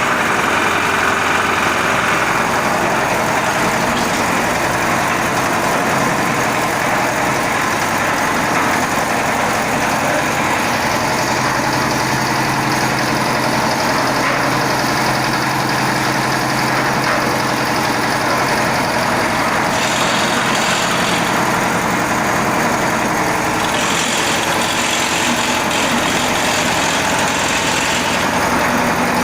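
Concrete mixer machine's engine running steadily with no pauses.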